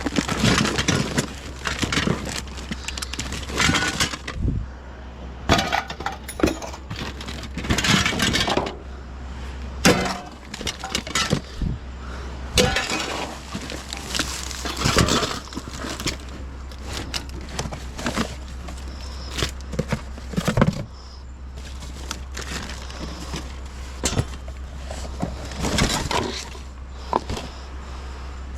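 Irregular clinking and clattering of broken glass and other scrap being handled and sorted, with many sharp knocks and rattles over a steady low hum.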